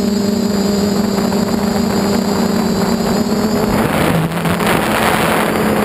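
Electric motors and propellers of a 450-size quadcopter humming at a steady pitch, with wind rushing over the onboard camera. About four seconds in the rush of air grows louder and the motor tone dips briefly in pitch, a throttle change.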